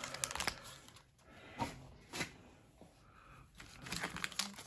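Soft, sparse rustling and light taps of foil Pokémon booster packs being handled, getting busier near the end as a pack is picked up.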